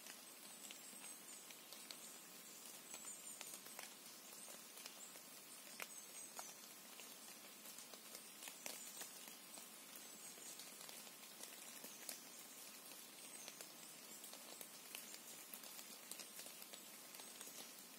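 Near silence of a beech forest: a faint even hiss with scattered soft ticks, and very faint high-pitched chirps every second or two.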